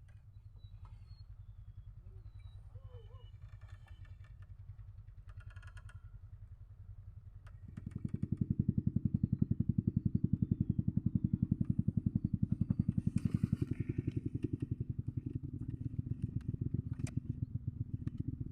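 Small engine running with a rapid, even pulsing. It becomes much louder about eight seconds in and stays loud.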